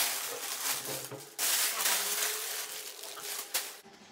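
Thin plastic bag crinkling and rustling as it is pulled off an appliance and bunched up by hand, stopping abruptly near the end.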